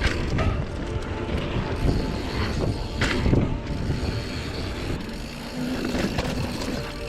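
Mountain bike riding over rough singletrack: tyres rumbling on the trail, with the chain and freehub clicking and rattling and knocks as it hits bumps.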